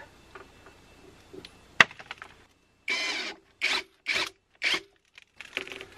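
Worx cordless drill driving a screw through the inverter's mounting flange into the wooden board: a sharp click about two seconds in, then one short run and three brief bursts as the screw is driven home.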